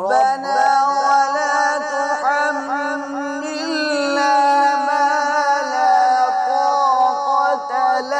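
A man reciting the Quran in the melodic tajweed style, drawing out one long, ornamented phrase on a held, wavering pitch.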